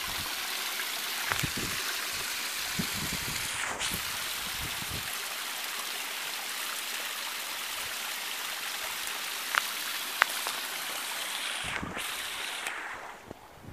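Water from a small waterfall pouring over a rock face and running through a shallow rocky stream, a steady splashing rush that fades near the end.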